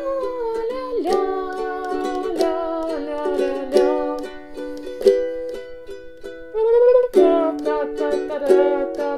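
Capoed ukulele strumming minor-key chords in a short down-up-up-down-up pattern. The first downstroke of each group is strong and full and the following strokes are quiet and short, giving an accented pulse about every 1.3 seconds.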